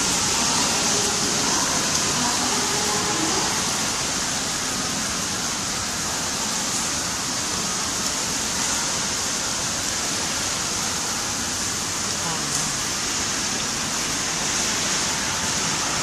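Torrential downpour: a steady, unbroken hiss of heavy rain and running water. Faint voices can be heard under it in the first few seconds.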